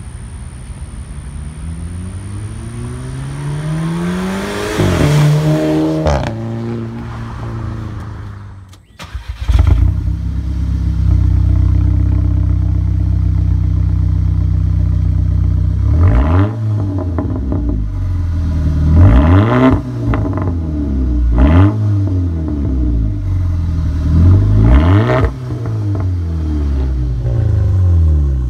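Twin-turbo Toyota 2JZ straight-six swapped into a VW Golf GTI, heard through its large single exhaust: first accelerating hard toward and past the listener, the pitch rising then dropping. From about ten seconds in it idles steadily, then is blipped in a run of quick revs that rise and fall.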